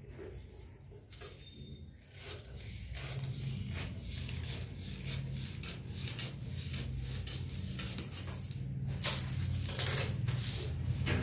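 Scissors cutting through a folded newspaper pattern in repeated snips, then louder paper rustling near the end as the cut sheet is handled.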